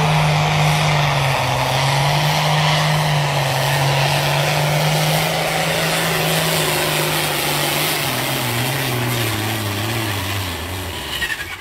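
Ford hot farm pulling tractor's engine running flat out under the load of a pulling sled, a loud steady drone whose pitch sags slowly as the pull goes on, then drops away sharply near the end as the run finishes.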